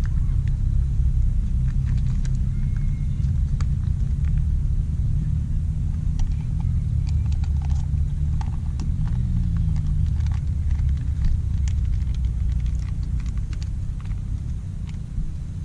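Motorcycle engine running with a steady low rumble, its pitch shifting briefly about nine seconds in, then fading away over the last couple of seconds.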